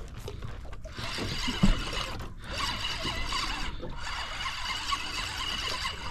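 Fishing reel being cranked to wind in line: a steady whir of fine, rapid gear clicks, broken by three short pauses.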